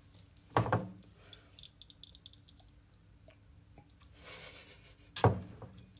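Phone handling noise: two loud bumps, about half a second in and near the end, with light rubbing and clicks between and a short rustle just before the second bump.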